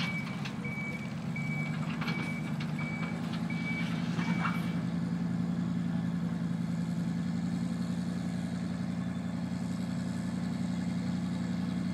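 A vehicle's backup alarm beeps steadily, about one and a half beeps a second, and stops about five seconds in, over the steady low rumble of an idling diesel truck engine.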